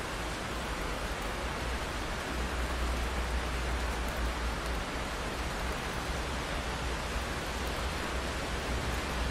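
Steady rain falling, an even hiss, with a low rumble underneath that grows a little a few seconds in.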